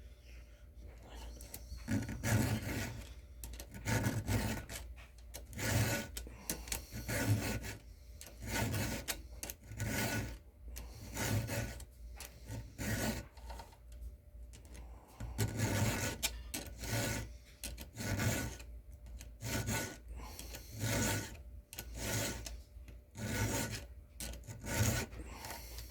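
A round file rasping across a chainsaw chain's cutting teeth in hand-sharpening strokes. The strokes start about two seconds in and come regularly, roughly one every second and a half.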